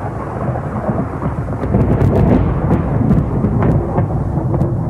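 Thunderstorm: a long, continuous rumble of thunder with sharp crackles through the middle, loudest about two seconds in, over the hiss of rain.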